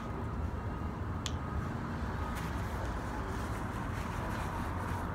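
Steady low rumble of nearby street traffic, with one sharp click about a second in.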